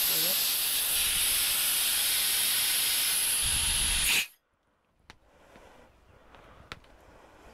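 Compressed air hissing from an air-gun nozzle pushed into a fishing buoy's one-way valve, inflating the buoy. The hiss cuts off suddenly about four seconds in, followed by a few faint clicks.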